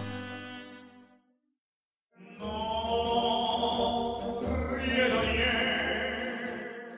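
Background music. A saxophone tune fades out in the first second, then after about a second of silence a slow piece with long, held, choir-like tones begins.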